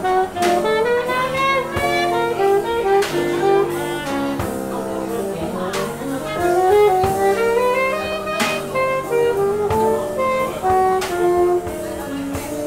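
Alto saxophone playing a jazz solo of quick rising and falling runs of notes, backed by electric archtop guitar and a drum kit with occasional cymbal and drum hits.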